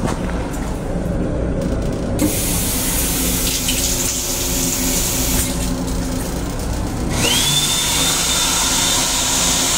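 Restroom faucet running water into the stainless sink, over the steady rumble of the moving M7 railcar. About seven seconds in, the restroom's hand dryer starts with a high whine that rises quickly and then holds steady.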